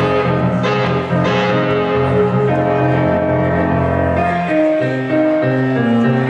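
Live instrumental band music: a hollow-body electric guitar and a stage keyboard playing, with a moving bass line under a melody of held notes.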